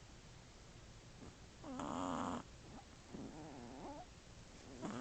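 Shih Tzu puppy snoring in its sleep: a loud snore about two seconds in, a softer, wavering breath a second later, and the next snore starting near the end.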